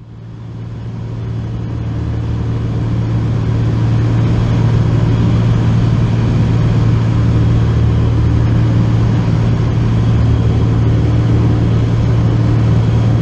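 Single-engine light plane's propeller engine droning steadily in flight, heard inside the cabin as a strong low hum. It fades in over the first few seconds, then holds level.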